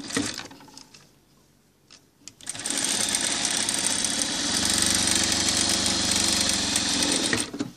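Industrial sewing machine stitching at a steady speed through fabric, starting about two and a half seconds in and running evenly for about five seconds before it stops.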